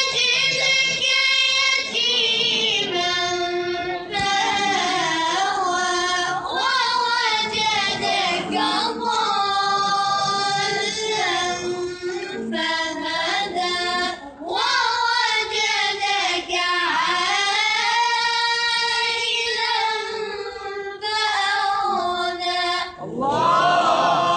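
A child's voice reciting the Qur'an in a melodic tilawah chant: long held notes that bend and ornament, with short pauses for breath between phrases at about 4, 12, 14 and 23 seconds in.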